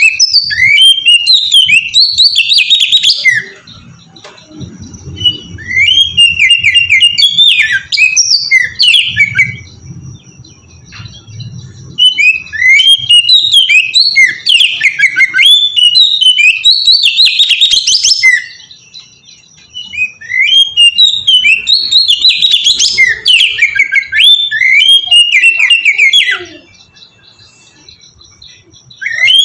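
Oriental magpie-robin singing: loud bouts of rapid, varied whistled phrases, about five bouts separated by pauses of a second or two.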